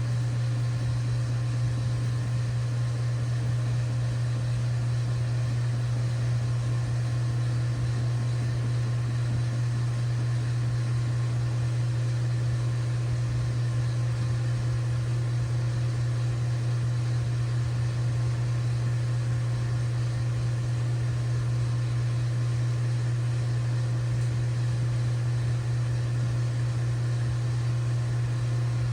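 LG WT7600HVA top-load washing machine running mid-cycle: a steady low hum that holds level and pitch throughout.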